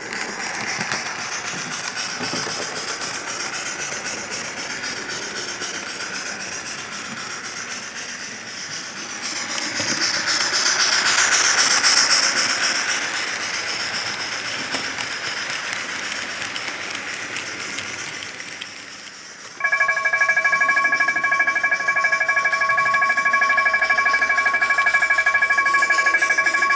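Model railway running noise, a hiss that swells for a few seconds in the middle. About two-thirds of the way through, the electronic bell of a model level crossing starts up: a loud, steady ringing of several tones together, with the barriers down.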